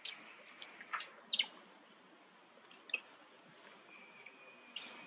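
Monkeys giving short, high squeaks and chirps, scattered about half a dozen times, the loudest about one and a half seconds in, with a faint thin steady high tone near the end.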